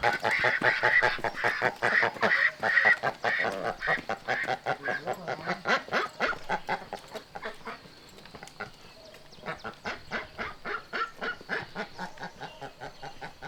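A crowd of caged ducks quacking, a dense stream of short rapid calls overlapping one another, loudest in the first half and thinning out after about seven seconds.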